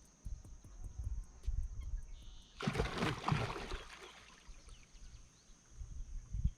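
A sudden loud splash in the water right beside the boat, about two and a half seconds in and lasting roughly a second, from an alligator.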